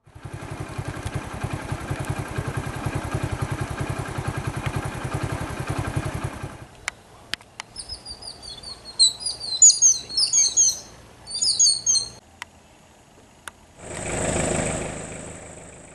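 A motor vehicle's engine running steadily for the first six seconds or so, then birds chirping in quick rising calls, and near the end a vehicle passing by on the road, rising and fading.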